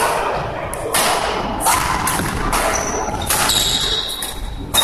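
Badminton rackets hitting the shuttlecock in a rally: about five sharp hits, irregularly spaced, echoing in a large sports hall over a murmur of voices.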